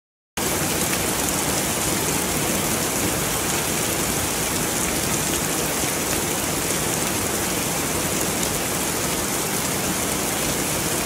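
Heavy rain pouring down steadily, a dense, even hiss that starts abruptly just under half a second in.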